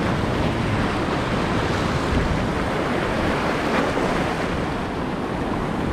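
Steady rush of surf breaking against rocks, mixed with wind on the microphone.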